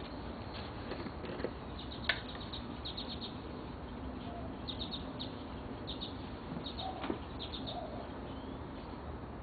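Small birds chirping in short quick runs of high notes, repeated every second or so, over steady background noise. Two sharp clicks stand out, about two seconds in and about seven seconds in.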